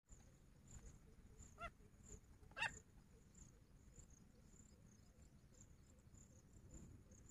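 Two short calls, about a second apart, from a caged grey francolin, the second one louder. Under them is a faint, high insect chirping that pulses steadily, about twice a second.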